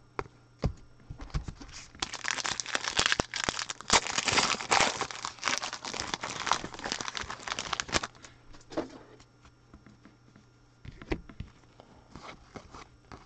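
A football trading-card pack's wrapper being torn open and crinkled, a dense crackling that starts about two seconds in and stops at about eight seconds. After it come a few light clicks.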